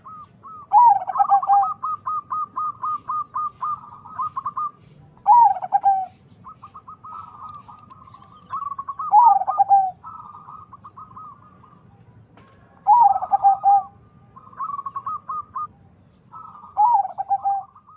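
Zebra doves (perkutut), a crossbred local-Bangkok bird, cooing. Five loud, low, falling phrases come about every four seconds, with quicker runs of higher, rapidly repeated coo notes between them.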